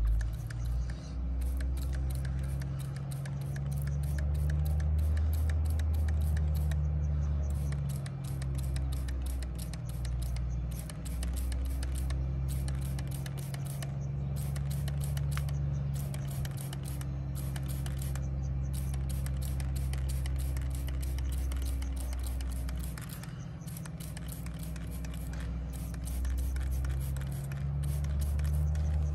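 Hand trigger sprayer being pumped over and over, with quick clicking squirts as liquid rust remover hits rusty steel. Underneath is a low hum that wavers slowly in pitch and drops out now and then.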